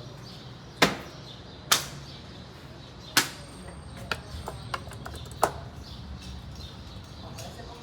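A handful of sharp, irregularly spaced clicks or taps, four of them louder, over a low steady hum.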